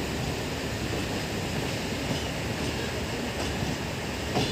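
Indian Railways passenger coaches running past on the next track, a steady rumble of steel wheels on rail, with one sharp click near the end.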